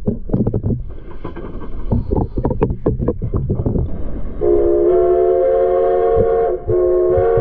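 Irregular knocking and clatter for about four seconds, then a steam locomotive's chime whistle sounds a steady chord of several notes, breaks off briefly about two seconds later and sounds again, heard through the water-filled glass tank around the camera.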